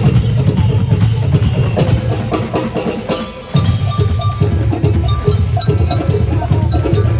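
Live percussion troupe drumming, with deep drums under a quick pattern of bright, sharp strikes. The drumming drops briefly about three seconds in, then comes back in with the bright strikes in a steady rhythm.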